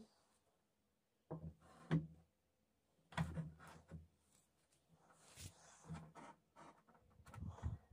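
Hands handling plastic plumbing parts: a short green plastic pipe is knocked and rubbed against a plastic fitting on a blue plastic drum and pushed into it. The sound is a scatter of light knocks and scrapes, the sharpest one about two seconds in.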